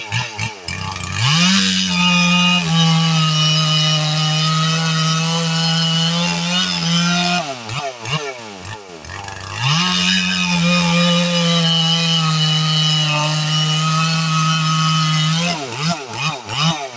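Freshly rebuilt big-bore Stihl 440 two-stroke chainsaw making test cuts in a small log. It idles, runs at full throttle through the wood for about six seconds, drops back to idle, then makes a second cut of about the same length and returns to idle near the end.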